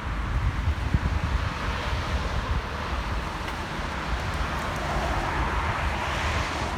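Wind buffeting the microphone while riding along a cycle path: a steady low rumble with a hiss that swells a little past halfway, near the end.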